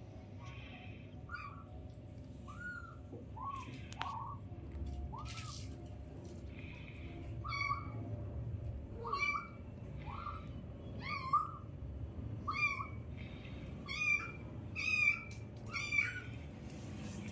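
Kittens mewing: a long series of short, high-pitched mews, about one a second, louder and more frequent in the second half.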